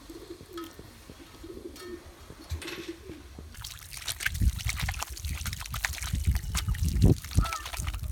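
A dove cooing quietly for the first few seconds. Then water is poured from a steel tumbler over cupped hands, splashing and trickling onto dry soil, with low thuds mixed in.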